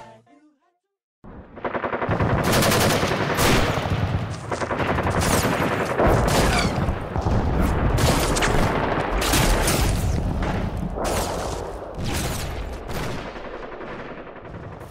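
Heavy, continuous gunfire: rapid machine-gun fire with many overlapping shots, a battle sound effect. It starts suddenly about a second in and fades somewhat near the end.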